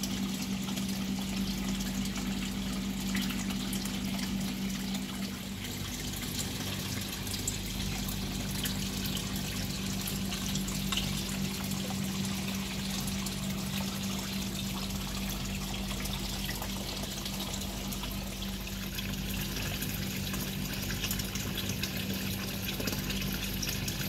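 Water spilling in a steady sheet from a PVC-pipe waterfall spout and splashing into a koi pond, running evenly throughout, with a steady low hum underneath.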